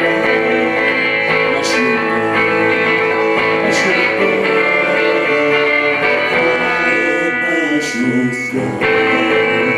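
Live band playing loud guitar-led music, with a short drop in loudness near the end.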